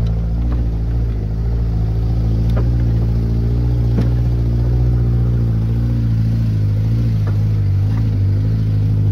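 Pickup truck engine running steadily at low speed on a rough dirt road, with a few sharp knocks and rattles as it goes over bumps.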